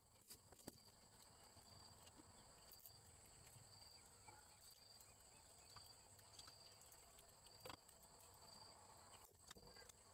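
Faint insects chirping steadily in a high pitch, with a trill that pulses about once a second. A few soft clicks come through, the most distinct about three-quarters of the way through.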